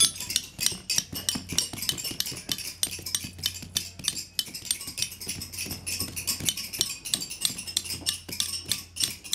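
Metal-tined carpet beater combs striking down the newly tied knots and weft on the warp threads of a hand-knotted carpet, several weavers at once. Quick, uneven clinking knocks, several a second, overlapping.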